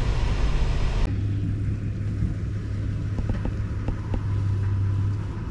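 Low road and engine rumble inside a moving Toyota's cabin. About a second in it changes abruptly to a steady low hum with a few faint ticks.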